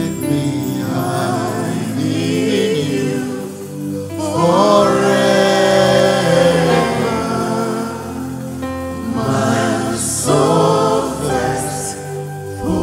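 Gospel worship song sung live: a male lead singer with two female backing vocalists, over steady sustained instrumental accompaniment, singing "Let me hide in you forever" and then "My soul thirsts for you".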